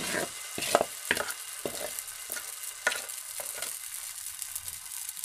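Thick dosa batter sizzling on a hot oiled tawa: a steady high hiss broken by a few sharp crackles, mostly in the first three and a half seconds.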